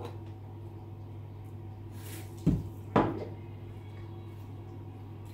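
Two sharp knocks about half a second apart, small hard objects put down on a bathroom counter, over a steady low hum.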